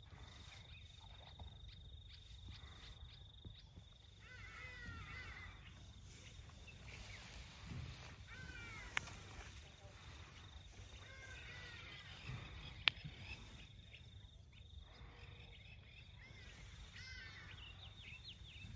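Faint outdoor grassland ambience: an insect trills steadily for the first few seconds, and birds chirp in short repeated phrases over a low rumble of wind. Two sharp clicks come about halfway through, the second the loudest sound.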